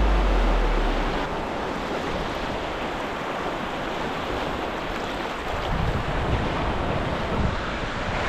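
Sea surf breaking and washing up a sandy beach, with wind buffeting the microphone. A low bass note fades out in the first second.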